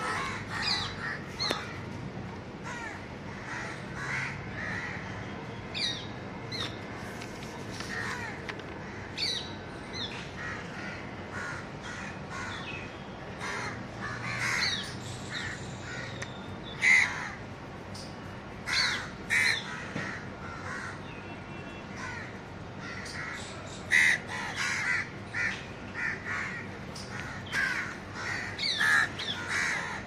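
A flock of house crows cawing, many short calls one after another and sometimes overlapping, with a few louder caws standing out.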